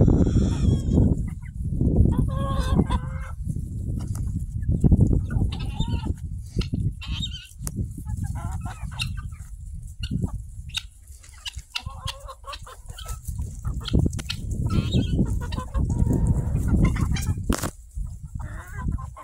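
A backyard flock of chickens clucking and calling, with many short calls overlapping irregularly over a steady low rumble.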